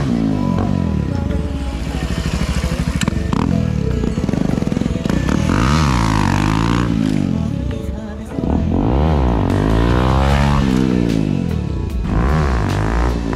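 Single-cylinder motorcycle with a loud aftermarket exhaust being revved up and eased off several times, its pitch rising and falling with each rev.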